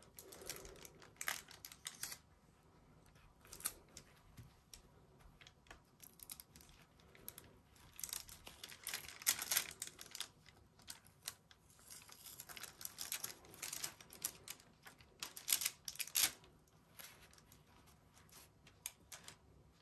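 Sublimation transfer paper and heat tape being peeled off a freshly pressed metal bookmark and handled: soft, irregular crackling and papery tearing rustles, in clusters that are busiest in the second half.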